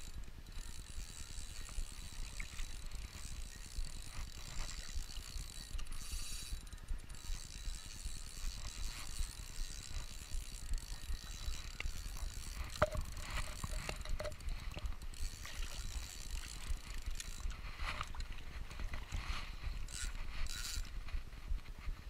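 Shimano FX spinning reel being cranked steadily to wind in line, a continuous pulsing whir and clicking of its gears, with a faint steady high whine, over a low rumble.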